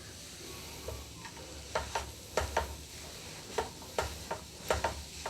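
A spoon scraping and knocking against a pan as a thick ginger-turmeric and sugar mixture in ghee is stirred over the heat. Irregular clicks come about every half second over a faint, steady sizzle.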